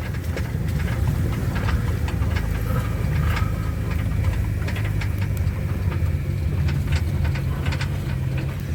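Ambulance engine and road noise heard from inside the cab: a steady low drone, with scattered small rattles and knocks as it drives over a rough road.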